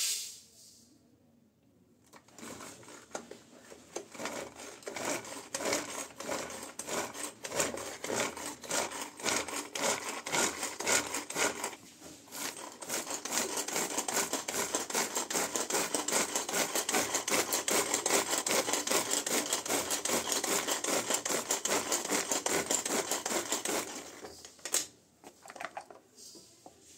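Hand-operated Butterfly vegetable chopper running. Its stainless-steel blades spin inside the plastic bowl, chopping onion and green chillies with a fast, continuous clatter. It goes in two spells with a short break about halfway and stops a few seconds before the end.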